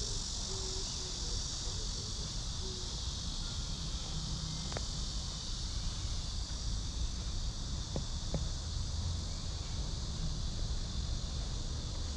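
Steady chorus of cicadas, a high even hiss, over a low rumble, with a few brief clicks.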